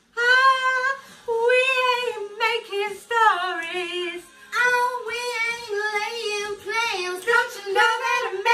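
Women singing loud, soul-style vocal ad-libs with strong vibrato, the pitch sliding and wavering, after a brief silence at the very start.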